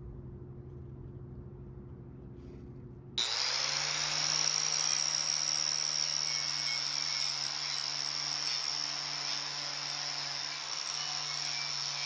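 An electric buffing wheel's motor hums steadily. About three seconds in, an angle grinder with an abrasive disc starts suddenly and loud, with a high steady whine, scouring rust off a cast-iron water heater body.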